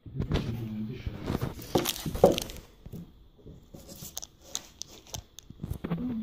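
Paper wrapping crinkling and tearing as a small statue is unwrapped by hand, loudest about two seconds in. This is followed by a few light clicks and taps as the figure is handled.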